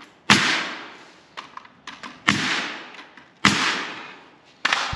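Nail gun firing four shots into lumber, each sharp crack trailing off over about a second, with a few light clicks between shots.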